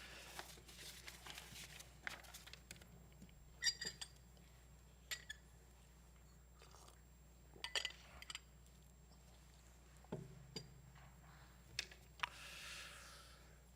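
Faint scattered clicks and light clinks of small objects being handled, with a brief soft rustle near the end.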